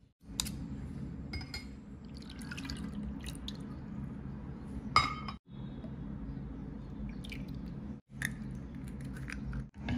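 Milk and then oil poured into a wooden bowl, with small splashing and dripping sounds, over a steady low hum. About five seconds in comes a single sharp, ringing clink.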